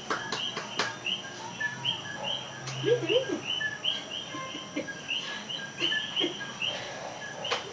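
A steady night chorus of small frogs: short two-note chirps, a lower note and a higher rising one, repeating about twice a second. A few sharp taps come in the first second, and there are some short low grunting sounds.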